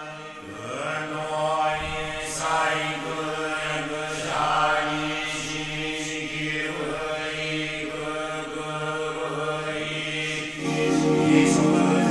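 Buddhist monks chanting a blessing together in a low, steady monotone, growing louder near the end.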